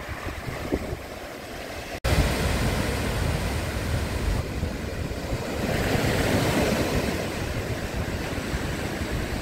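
Ocean surf breaking and washing up a dark sand and pebble shore, a steady rushing wash. About two seconds in the recording cuts briefly, and after that wind rumbles on the microphone.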